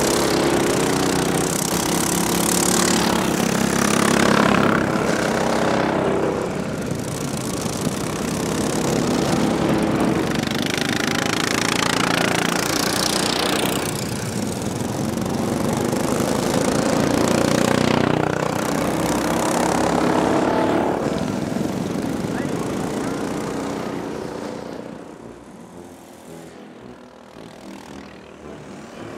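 Racing ride-on lawn mower engines buzzing past one after another, each pass swelling and fading, several times over. The passes grow quieter near the end.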